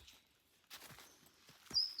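Footsteps of a hiker walking on a mountain trail, with a brief scuff about a third of the way in. Near the end a bird gives a loud, high whistled call that slides quickly up and down in pitch.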